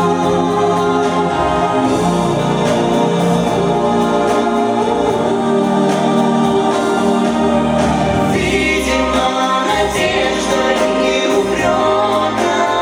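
A choir singing in sustained, held harmonies; the sound grows brighter about eight seconds in.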